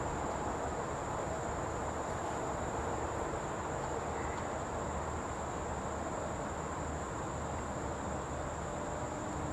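Insect chorus holding one steady high-pitched note, over a constant low background rumble.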